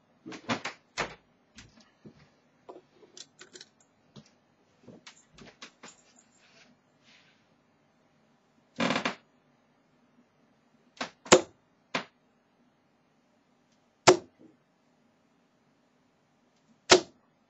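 20 g tungsten darts thudding into a dartboard one at a time, a few seconds apart, with lighter clicks and taps between the throws.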